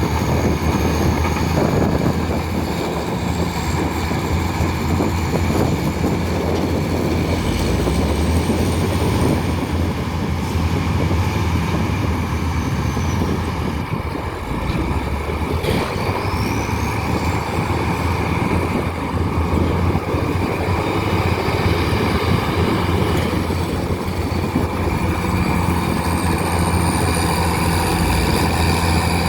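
Heavy diesel engine of a crawler bulldozer or similar earthmover running steadily, with a constant low engine note.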